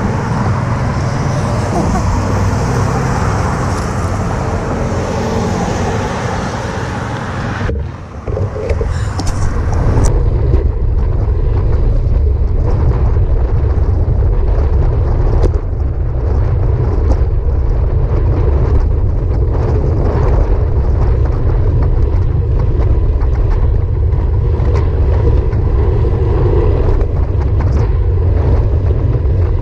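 Road traffic passing a stopped bicycle at an intersection. About eight seconds in the sound cuts to a steady low rumble of wind buffeting a handlebar-mounted camera's microphone as the bicycle rides at about 20 mph.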